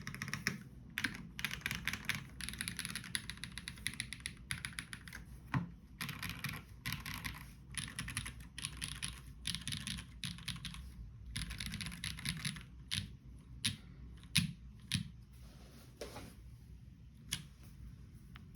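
Iron165 gasket-mounted mechanical keyboard with JWK Tungsten switches on an aluminium plate and GMK keycaps, typed on in fast, dense runs of keystrokes. After about twelve seconds the typing thins to scattered single key presses, a few of them louder.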